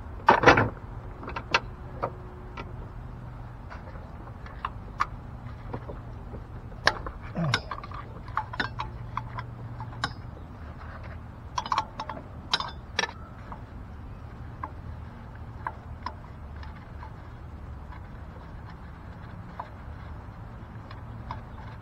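Metal hand tools clinking and rattling in a car's engine bay: a socket set and ratchet being handled in scattered short clinks, the loudest about half a second in and another flurry in the middle, over a faint steady low hum.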